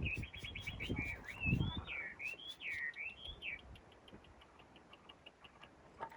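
A small bird calling: a quick run of chirps, then a string of whistled notes sliding up and down, then faint rapid ticking notes. Dull low thumps sound under the calls in the first two seconds.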